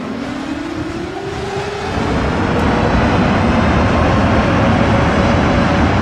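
Tornado roar: a loud, dense rushing wind noise that grows louder about two seconds in. Under it a warning siren winds up, its wail rising in pitch and then holding a steady tone.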